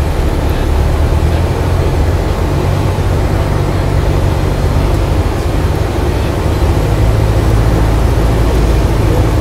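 Cessna light aircraft's piston engine and propeller droning steadily, heard inside the cabin together with the rush of airflow, on approach to land.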